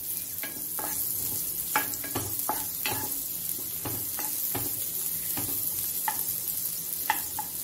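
Chopped onion and cumin seeds sizzling in hot ghee in a nonstick frying pan, with a steady hiss. A wooden spatula stirs them, scraping and knocking the pan irregularly, about twice a second.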